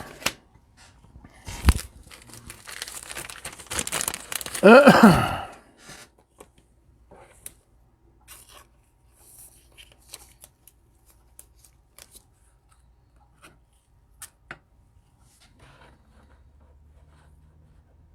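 A trading-card pack wrapper being torn open and crinkled, with a single knock about two seconds in. After about six seconds only scattered faint ticks and clicks remain.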